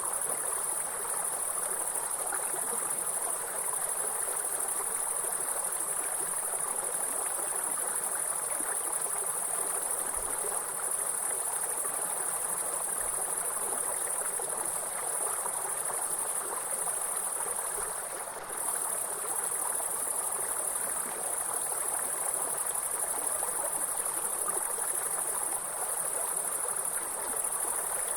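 A steady, high-pitched insect chorus over the even rush of running water from a stream. The insect trill drops out briefly about two-thirds of the way through.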